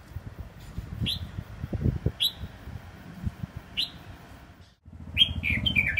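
A caged songbird gives three short, sharp chirps, each dropping quickly in pitch, spaced a second or more apart. After a brief break near the end, a quicker run of chirps follows over a steady low hum.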